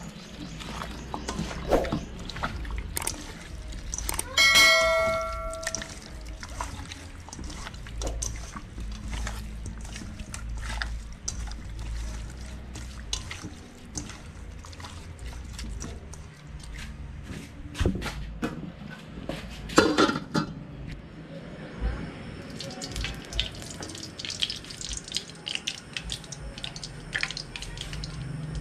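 Wet squelching and clicking of raw chicken pieces being mixed by hand in marinade in a stainless steel bowl. A brief pitched cry is heard about four seconds in.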